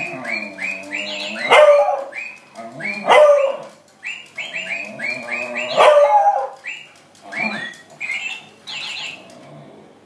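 Beagle barking and baying about six times, loud, in reply to runs of quick, evenly spaced chirps from a toy parrot that keeps chirping between the barks.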